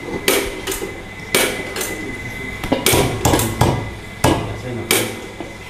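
Repeated sharp clicks and knocks, about ten at irregular intervals, from attempts to light a portable gas stove under a wok, with the burner not yet catching.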